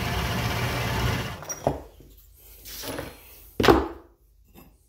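Atlas metal lathe running steadily under its milling attachment, then shutting off a little over a second in. A few knocks follow, the loudest near the end.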